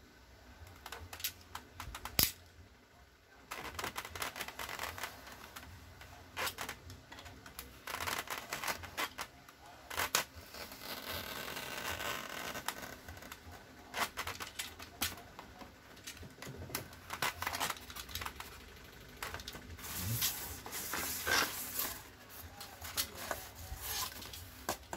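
Knife cutting a sheet of LCD polarizer film laid on foam: scattered clicks and taps from the blade and sheet being handled, with longer scraping strokes near the middle and again near the end.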